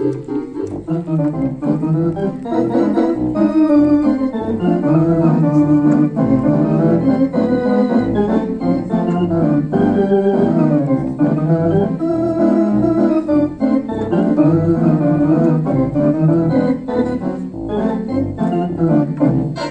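Theatre organ played live: full sustained chords with a moving melody on top and separate low pedal bass notes beneath.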